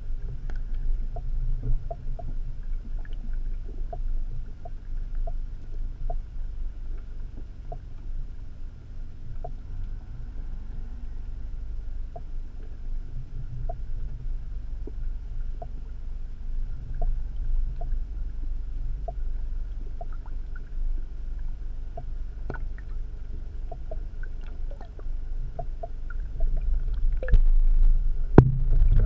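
Muffled underwater rumble picked up by a submerged camera, with faint clicks scattered throughout. A louder knock comes near the end.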